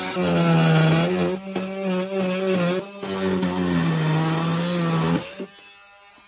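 Makita cordless oscillating multi-tool running and cutting at a kayak's Smart Track rudder-control rail to get it off. It buzzes steadily, its pitch sags as the blade bites, it dips briefly twice, and it stops about five seconds in.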